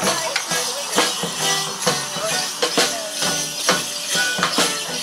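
Border Morris dance music: drums beating a steady beat of about two strokes a second, with jingling bells and short held melody notes over it.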